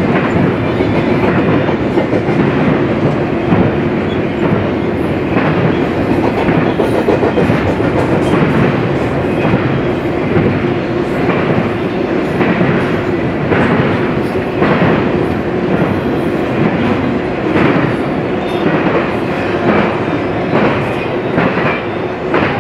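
Double-stack intermodal well cars of a freight train rolling past, with a steady drone and repeated clicks of the wheels over rail joints, roughly once a second.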